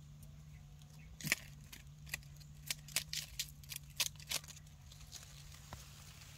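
Dry leaf litter crackling and clicking in short sharp snaps, a dozen or so between about one and four and a half seconds in, over a low steady hum.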